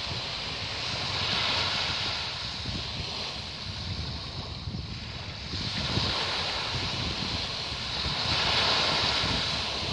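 Small waves of a calm sea lapping and washing onto a sandy beach, the wash swelling louder about a second in and again near the end.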